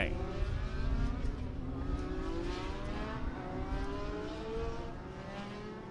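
A pack of Legends cars with motorcycle engines running at caution pace. Several overlapping engine notes drift up and down in pitch over a low rumble.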